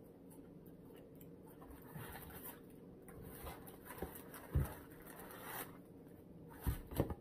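Takeout food packaging being handled: scratchy rustling and scraping, with a few dull knocks, the loudest about four and a half seconds in and two close together near the end.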